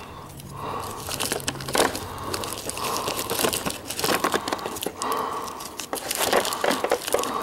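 Clear plastic blister packaging crinkling and tearing, with irregular crackles and clicks, as plastic fuel-line disconnect tools are worked out of it.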